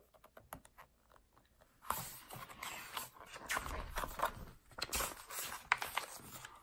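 Book being handled during reading aloud: a few faint clicks, then about five seconds of uneven rustling and scraping, like pages being turned and rubbed.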